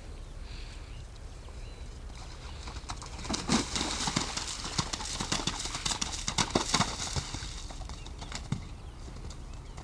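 A horse's hooves splashing through a shallow, muddy water jump: a quick run of hoofbeats and splashes starts about three seconds in and eases off after about seven seconds, leaving a few scattered hoofbeats.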